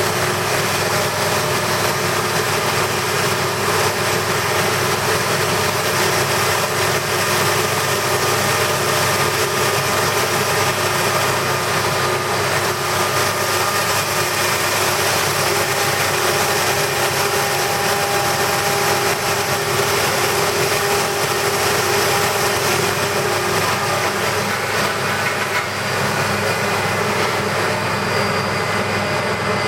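Electric cocoa and spice powder grinding machine running steadily, a constant machine noise with steady tones in it that shift slightly near the end.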